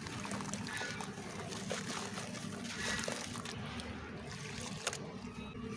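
Lumps of red dirt crumbling and dissolving in water: a steady fizzing trickle with small splashes and a few sharp clicks.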